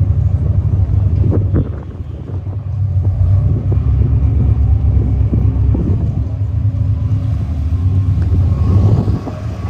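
Low, steady rumble of a 50 m Heesen superyacht's engines running as it manoeuvres at the quay, with a faint steady hum over it, dipping briefly about two seconds in.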